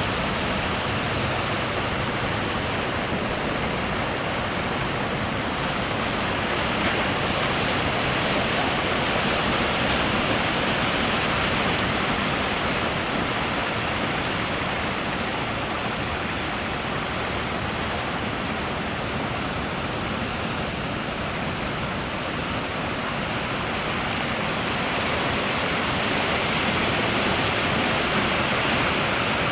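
Surf at a river mouth making a steady rushing noise with no breaks.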